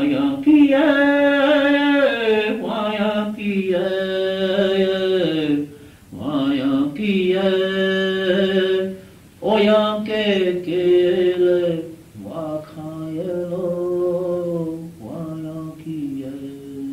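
A man singing a Lakota song unaccompanied, on an old cassette recording. He holds long notes in four phrases that step down in pitch, breaking for breath between them.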